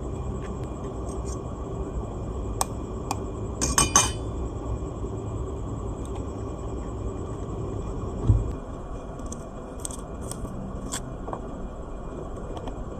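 Glassware and dishes clinking as they are handled, with a quick rattle of clinks about four seconds in and scattered lighter ticks. A dull thump comes just past the middle, over a steady low rumbling background.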